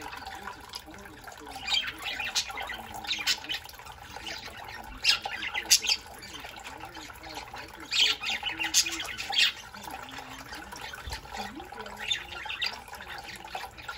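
A flock of budgerigars calling: irregular clusters of short, sharp squawks and chirps over a steady background of chatter.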